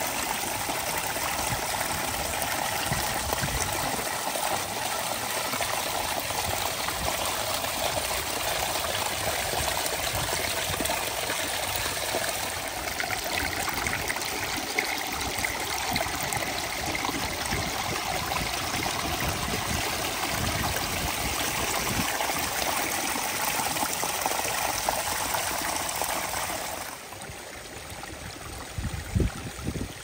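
Water running and splashing over small stone drops in a rock-lined backyard stream and waterfall, a steady rushing trickle. Near the end it turns quieter, with a few low bumps.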